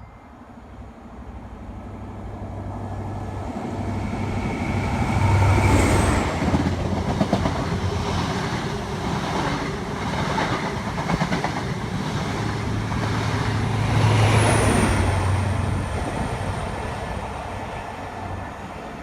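Diesel train passing through the station, building up, then loudest twice as its engine units go by, with the wheels clicking over the rail joints in between, then fading away.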